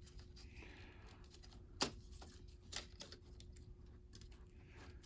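Faint handling noise of a laptop cooling fan being worked into place inside the open chassis, with two sharp plastic clicks about a second apart near the middle and a few softer ticks.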